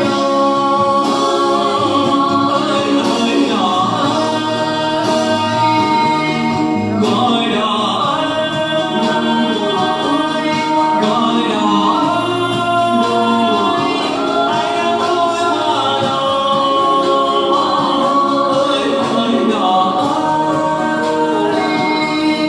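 A boy singing a Vietnamese trữ tình (lyrical ballad) song into a karaoke microphone, with musical accompaniment; long held, wavering notes.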